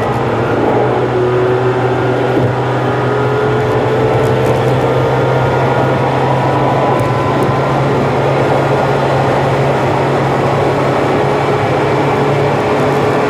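Car driving on an expressway: steady engine and road noise, with engine tones slowly rising in pitch.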